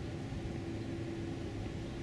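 Steady low outdoor background rumble, with a steady hum that comes in about half a second in and holds.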